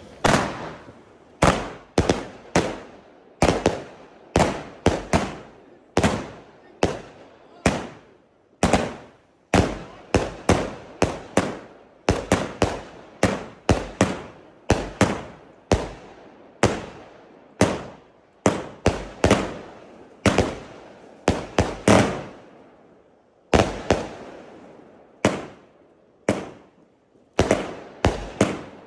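Lesli Crowd Control compound firework battery firing shot after shot, about one to two sharp bangs a second, some in quick pairs. Each bang trails off in an echo.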